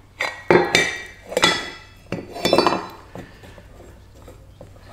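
Metal top half of a Maytag washer transmission housing clanking as it is lifted off and set down on the bench: a string of ringing metallic clinks and knocks over the first three seconds, then only a few faint taps.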